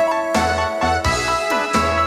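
Instrumental introduction of a German-language song, before any singing: a full band arrangement with a steady drum beat and sustained melodic notes.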